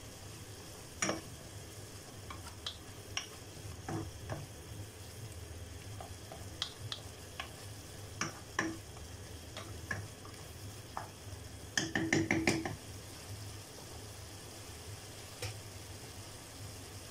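Wooden spatula scraping and knocking against the sides of a nonstick pot while stirring sautéing tomatoes and onions, with scattered single taps and a quick run of knocks about twelve seconds in, over a faint steady sizzle.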